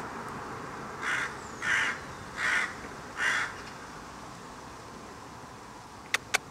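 A crow cawing four times, harsh calls roughly a second apart, followed near the end by two sharp clicks in quick succession.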